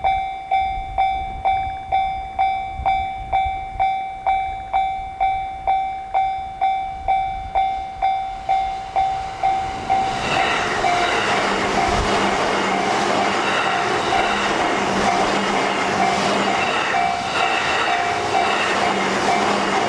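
Japanese level-crossing warning bell ringing its steady "kan-kan" at about two strokes a second. About ten seconds in, a JR Sobu Line electric train passes, its running noise and wheel clatter covering the bell, which keeps ringing underneath.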